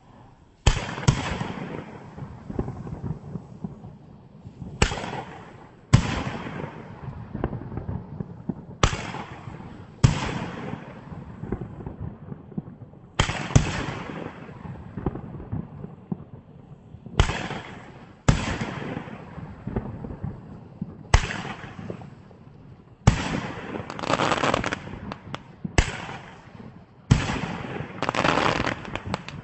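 A 20-shot fireworks cake firing: sharp bangs every one to four seconds, sometimes two close together, each followed by a fading crackle of noise.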